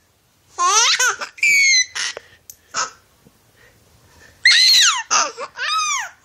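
Six-month-old baby laughing in high-pitched squeals, in short bursts that pause midway and then start again.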